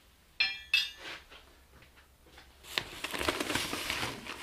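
Two quick ringing clinks of metal parts knocking together, then foam packing peanuts rustling and crackling as hands dig through them in a cardboard box.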